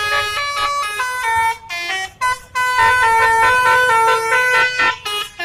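Telolet musical horn on a tour bus playing a multi-note tune, its tones stepping up and down in pitch with short breaks between phrases. It is loudest in the second half and stops just before the end.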